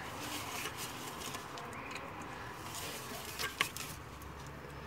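Low steady background hiss with a few small sharp clicks about three and a half seconds in, as parts of the LPG gas cut-off valve and its electrical connector are handled and refitted.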